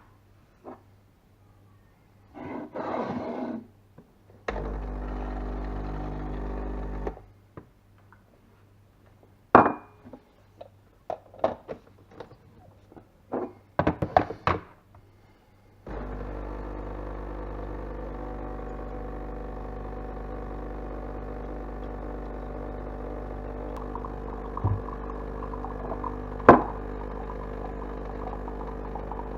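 DeLonghi EC151 espresso machine's pump humming in a short run, then a few sharp knocks and clatter, then the pump starting again about halfway through and running steadily, as when pulling a shot.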